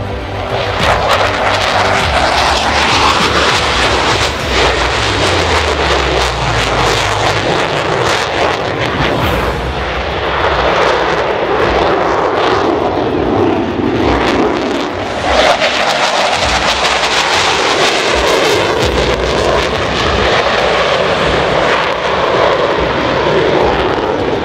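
Twin turbofan engines of a two-seat Boeing F/A-18D Hornet fighter at high power with afterburners lit as it flies past. The jet noise swells and fades in several sweeps.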